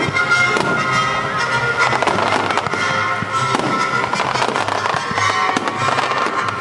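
Fireworks bursting and crackling in rapid succession, over music that plays along with the display.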